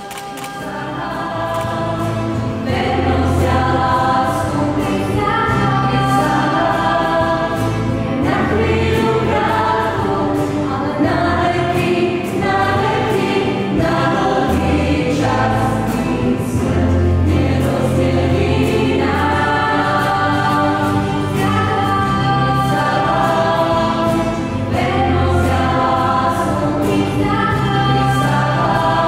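Live church worship band, keyboard and bass guitar, with several voices singing a Christian song together, steady bass notes under the voices. The music swells in over the first couple of seconds.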